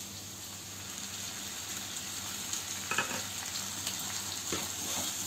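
Chopped vegetables sizzling steadily in hot oil in a kadai, growing slightly louder as tomato puree goes in. A wooden spatula stirs the puree through, with a few short scrapes and knocks on the pan from about three seconds in.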